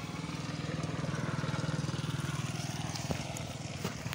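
A small engine running steadily with a rapid low putter, swelling over the first couple of seconds and then easing off. A couple of faint clicks near the end.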